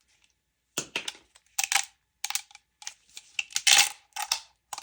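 Resin support structures being snapped and broken off a freshly washed SLA 3D print: irregular sharp plastic clicks and cracks in clusters, starting about a second in.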